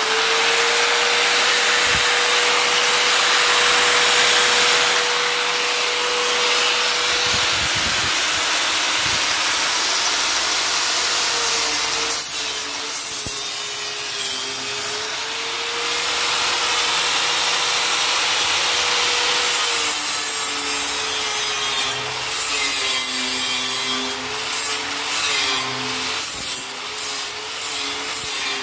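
Corded electric angle grinder with an abrasive disc grinding a metal stair railing: a loud, steady motor whine over harsh scraping. Before halfway the whine starts to dip and waver as the disc is pressed harder against the metal, and near the end the disc touches on and off in quick scrapes.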